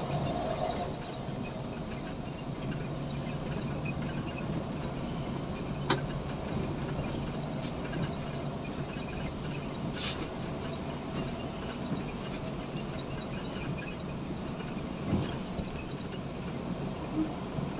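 Coach bus cabin at highway speed: steady engine drone and road rumble. A sharp click about six seconds in, a brief hiss around ten seconds, and a light thump near the end.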